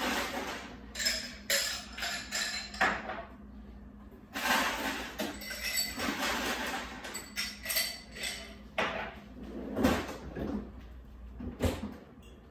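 Scattered clinks and knocks of kitchen clatter, irregular and of varying loudness, from dishes and cupboards being handled at a counter.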